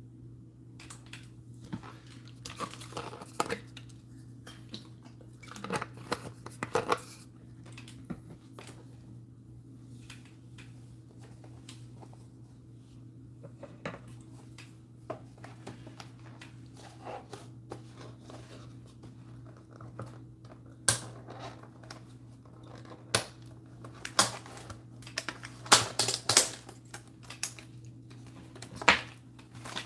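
A cardboard 2020 Select football hanger box of trading cards being handled and torn open: scattered rustling and light knocks, then, about two-thirds of the way in, a run of sharp tearing and crinkling noises as the box is ripped open. A steady low hum sits underneath.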